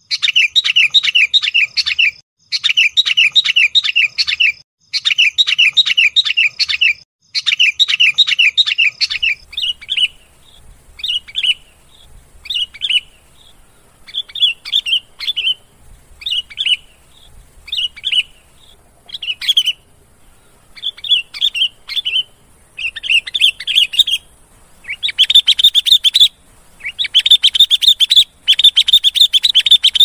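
Sooty-headed bulbul (kutilang) calls played as a bird-trapping lure: rapid chattering runs of notes in bursts of about two seconds. About a third of the way in they thin to single notes roughly once a second, and dense chattering returns near the end.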